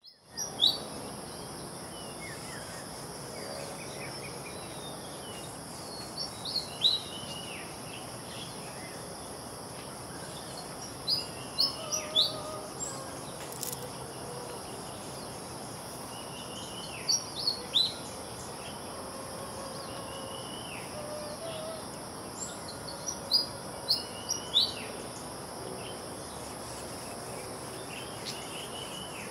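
Pied fantail calling: clusters of short, high, sharp whistled notes, some rising and some falling, repeated about every five to six seconds, over a steady high drone of insects.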